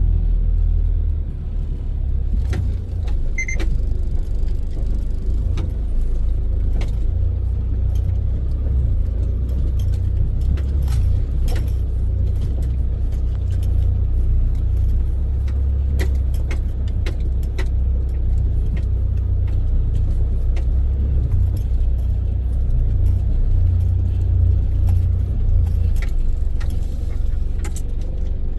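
A car driving: a steady low rumble of engine and road noise, with scattered light clicks and rattles.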